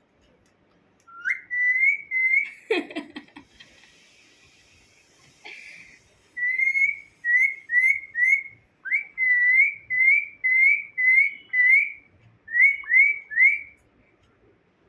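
A run of short whistled notes, each sliding up and then holding at about the same pitch, roughly two a second. About three seconds in there is a brief clatter and rustle.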